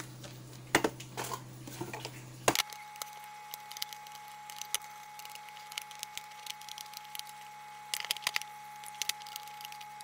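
Scattered clicks, taps and scrapes of a screwdriver and hands on the plastic housing of a solar LED street light as the screws of its back cover are taken out.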